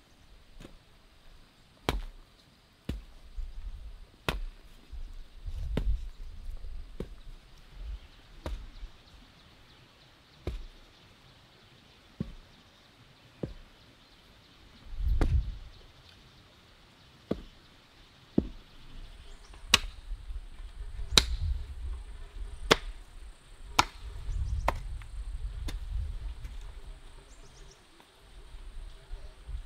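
A hand hoe chopping into garden soil, striking over and over about once every second or so. Each stroke is a sharp knock with a dull thud. The strokes grow louder and busier after the middle.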